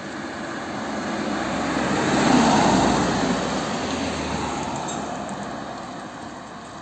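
A minibus driving past: its engine and tyre noise build up, peak about two and a half seconds in, then fade as it moves away.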